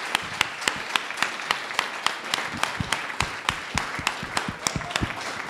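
Audience applauding, with many sharp individual hand claps standing out from the steady clapping.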